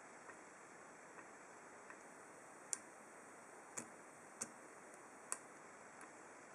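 Small sharp clicks of a hook pick and tension tool working the pins inside an ASSA Ruko 2 padlock's 7-pin core: a few faint ticks, then four clearer clicks spaced about a second apart in the second half, over near silence.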